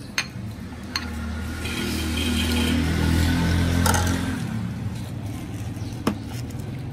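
A motor vehicle engine passing close by, swelling for a few seconds and then fading, with a few sharp clinks of a steel ladle against the pot and bowl.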